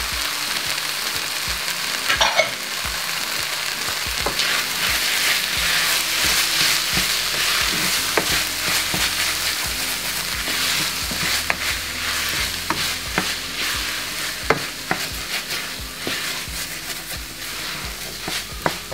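Minced meat and red kidney beans sizzling in a stainless steel pan while a wooden spoon stirs them, with scattered scrapes and knocks of the spoon against the pan.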